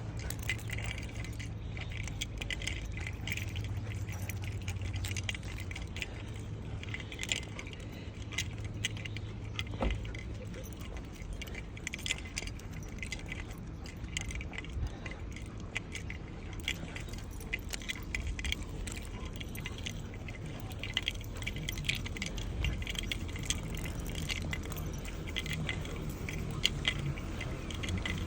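Small metal pieces jingling and clinking irregularly, over a steady low rumble.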